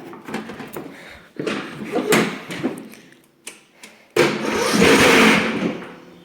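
Riding lawnmower's engine being started: uneven cranking sounds first, then the engine catches with a sudden loud burst about four seconds in and runs, its level falling away near the end. It starts readily, with little cranking.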